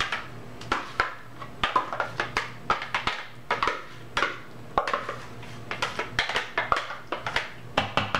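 A spatula scraping and knocking against the inside of a plastic food processor bowl as thick, mushy vegetable purée is scraped out into a mixing bowl. It comes as irregular short clacks and scrapes, several a second.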